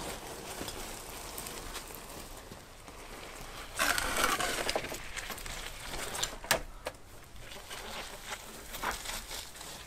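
Scraping and knocking of a heavy concrete raised-bed post being wrestled out of the soil by hand, with a louder scrape about four seconds in and a couple of sharp knocks later.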